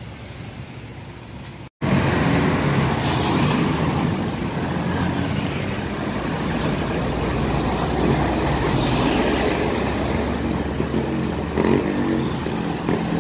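Steady rumble of a motor vehicle's engine running close by, starting abruptly about two seconds in.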